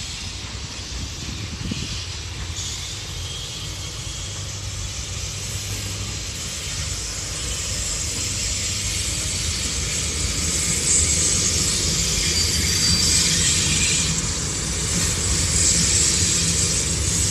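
VL10U electric locomotive hauling a freight train, approaching and passing close by. A steady rumble of wheels on rails with a hiss over it grows louder over the first ten seconds or so, then stays loud as the locomotive goes past.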